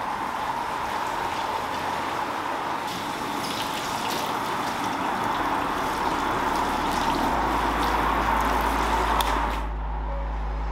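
Water spraying from a wand onto a car's hood and windshield, a steady rush that stops near the end.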